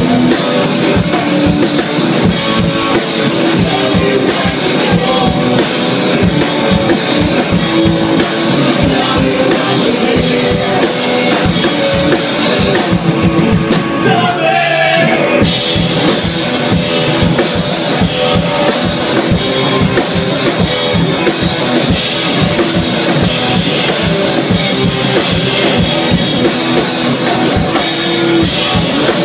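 Live rock band playing loud on electric guitar and drum kit, with a man singing at times. About halfway the sound thins briefly to a single wavering held note before the full band comes back in.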